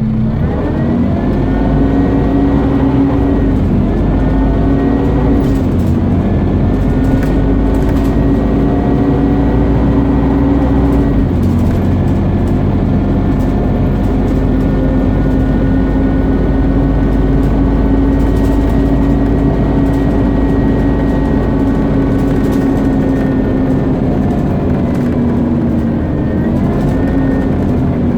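Scania CN230UB Omnicity single-deck bus engine pulling under load, with a loud vacuum-cleaner-like whine over the engine note. The pitch climbs as the bus pulls away, changes about eleven seconds in, holds steady for a long stretch, dips near the end and then climbs again.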